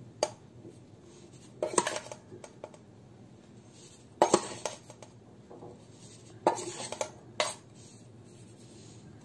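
Large steel spoon clinking against a steel bowl and plate while semolina is scooped and tipped out, in several short clusters of clinks a couple of seconds apart.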